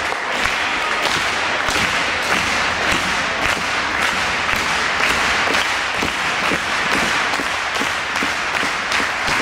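A crowd of spectators in a sports hall clapping without a break: a dense run of sharp claps.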